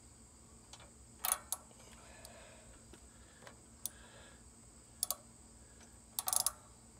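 Ratchet wrench clicking as the plastic oil drain plug is run back into the mower engine: a couple of sharp clicks about a second in, another near five seconds, and a quick run of clicks near the end.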